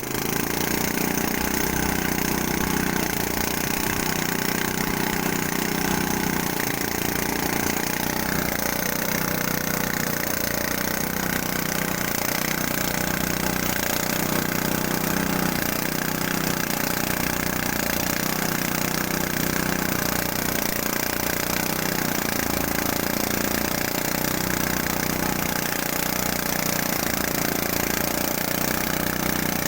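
Engine-driven rice threshing machine running steadily, a continuous dense mechanical drone.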